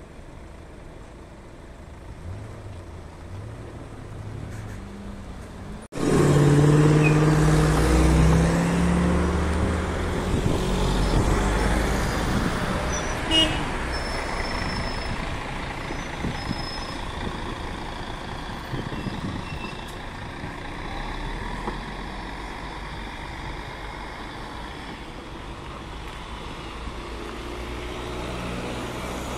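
Road traffic moving off at a level crossing: faint idling engines at first, then, from about six seconds in, loud close-by traffic as an articulated city bus's diesel engine pulls past, with the sound slowly easing off as cars follow.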